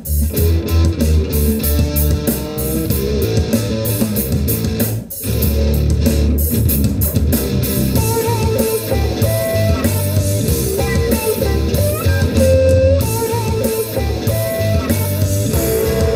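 Guitar music with heavy bass, played through Edifier G2000 desktop gaming speakers set to game mode and picked up by a microphone in the room. The music drops out briefly about five seconds in.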